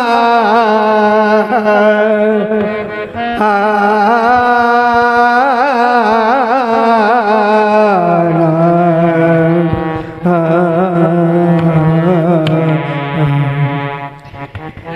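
Music in the Indian stage-drama style: a melody of long, wavering held notes that moves to new pitches every few seconds, with no words.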